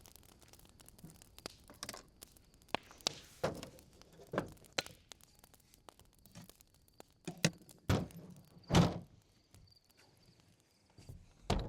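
Handling noise: scattered clicks, knocks and short thuds of things being moved and set down, with a few louder thumps in the second half and one near the end.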